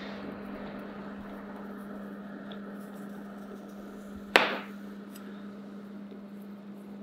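Kitchen knife trimming the stem off an eggplant, with one sharp knock about four seconds in, over a steady low hum.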